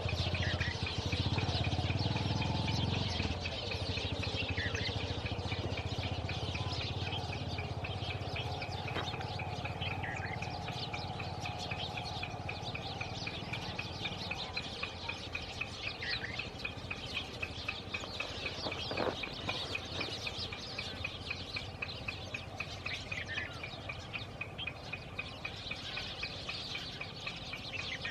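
Wild birds chirping and calling, with a high note repeated rapidly throughout and a low rumble during the first three seconds.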